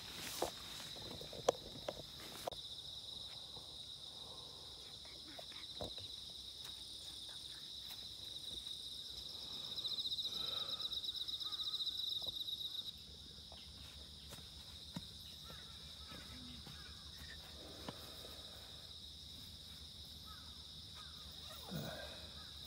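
Insects chirping in a steady, high, fast-pulsing trill, louder for a few seconds near the middle. A few sharp clicks come in the first six seconds.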